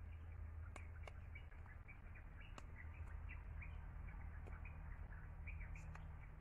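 Small birds chirping in the background, many short high chirps over a low steady hum, with a few sharp clicks scattered through.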